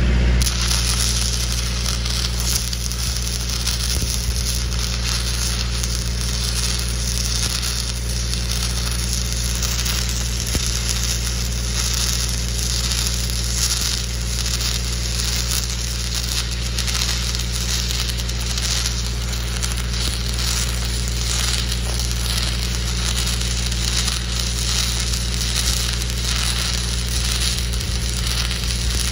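Stick-welding arc of a 1/8-inch 6010 cellulose rod, crackling and sizzling steadily as it fills gaps in the plate, over the steady low hum of an engine-driven welder running underneath.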